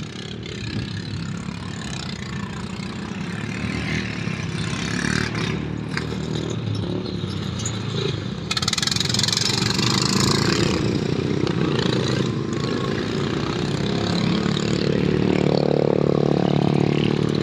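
Racing lawnmower engines running hard, several motors overlapping and growing louder, with a swell of rougher noise around the middle.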